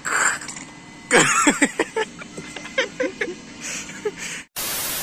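A person's short wordless vocal sounds: a cry that falls in pitch about a second in, then a few brief blips. Near the end comes a loud hiss like static, lasting about half a second and cutting off suddenly.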